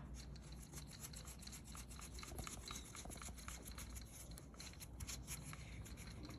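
Hand tool tightening a fastener on the door handle assembly: a faint, quick run of light clicks with rubbing.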